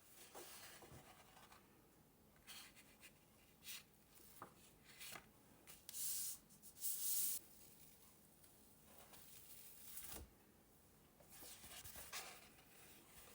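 Faint rubbing and scraping of paint and paper being worked by hand, in short swishes, the two loudest about six and seven seconds in.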